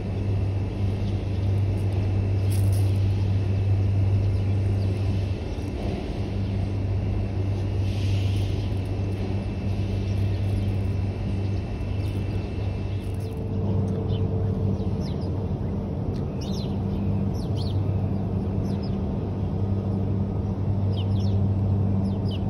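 Steady low outdoor rumble with a strong hum, like distant traffic, throughout; in the second half, faint short high bird chirps.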